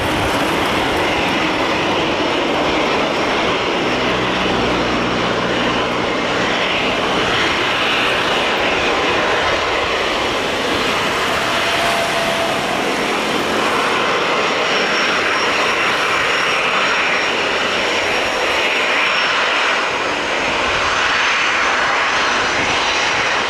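Turbofan engines of a Boeing 737 Classic freighter running at taxi power. A steady loud rush, with a faint high whine on top.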